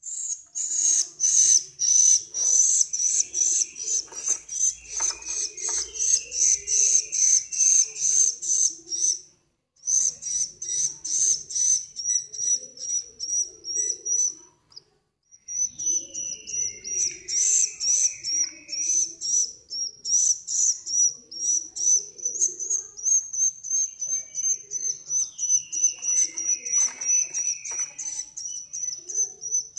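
An edible-nest swiftlet chick gives rapid, repeated high-pitched begging chirps, about three or four a second, pausing briefly twice. These are the calls of a hungry chick.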